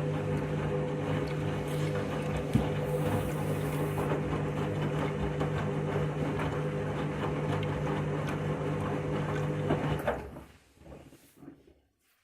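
Washing machine in its 1200 rpm final spin: a steady motor hum and whine over a rattling drum. It cuts off abruptly about ten seconds in, followed by a few faint knocks.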